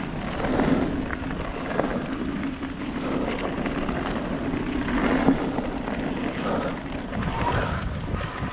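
Yeti 160e electric mountain bike being ridden along a dirt forest trail: a steady rush of tyre and air noise with scattered clicks and rattles from the bike over bumps. A steady hum runs through the first part and fades out about five and a half seconds in.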